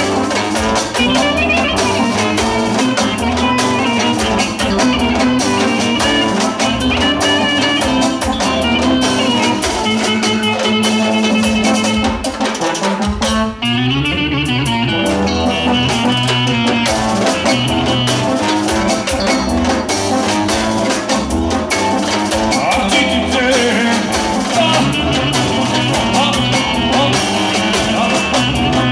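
Live band music: a clarinet plays a melody over a set of small drums struck with sticks, with a fuller band sound behind them. About halfway through, the melody makes a swooping slide down and back up in pitch.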